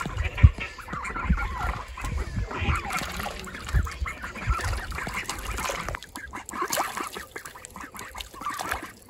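A group of mallard and mallard-cross ducks calling and quacking close by as they crowd in to be fed by hand. Low thumps on the microphone during the first six seconds.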